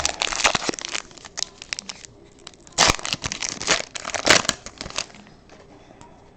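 Crinkling and crackling of a trading-card pack wrapper being handled and opened, in three spells: about the first second, then around three seconds in and again around four and a half seconds in.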